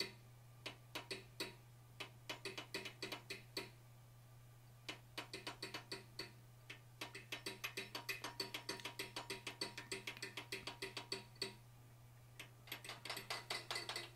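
A hand hammer taps quickly and lightly on a handheld blacksmith's fuller held against a hot forged steel bear's head, dressing and smoothing the surface. The taps come about five a second in runs, with short pauses about four seconds in and again near the end.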